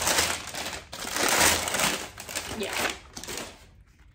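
Patterned paper shop wrapping crinkling and rustling as it is pulled open by hand, a dense crackly rustle that dies away near the end.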